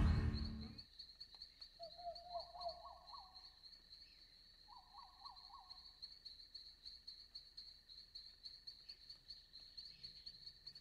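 The tail of a string music cue fades out. It leaves faint, steady insect chirring, high-pitched and rapidly pulsing. Two short warbling calls come about two and five seconds in.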